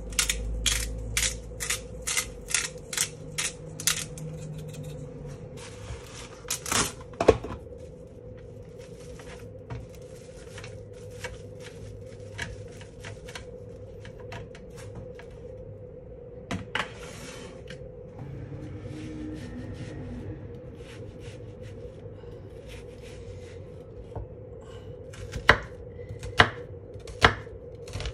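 A salt grinder being twisted, clicking about three times a second, then the crinkle of plastic cling film being stretched over a metal tray. Near the end a kitchen knife chops through a red onion onto a wooden cutting board, sharp knocks a little under a second apart, over a faint steady hum.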